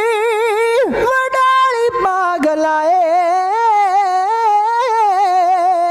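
Male Sikh dhadi singer holding long, melismatic sung notes in a high voice with wide, wavy vibrato, with a few short taps about one and two seconds in.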